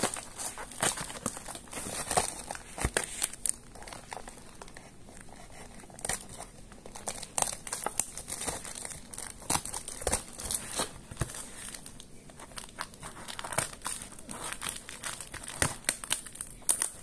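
Clear plastic wrapping and tape being pulled and torn off a cardboard shipping box, crinkling and crackling in irregular bursts.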